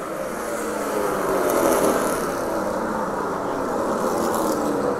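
Race car engines running at speed around an oval track, several engine notes rising and falling in pitch as the cars accelerate and lift.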